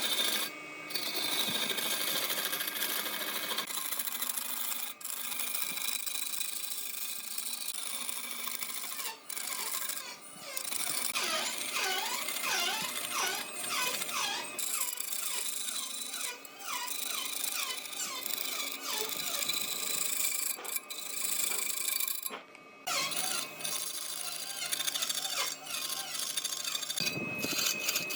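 Woodworking machine and tool noise in a string of short cut-together clips, with a run of squealing tones that slide up and down in pitch about halfway through.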